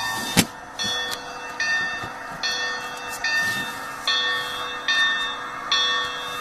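Steam-locomotive bell sound from a Bachmann Sound Value DCC decoder, played through the HO-scale 2-8-0's small onboard speaker. It rings steadily, one strike about every 0.8 seconds, over a faint steady hum. A sharp click sounds about half a second in.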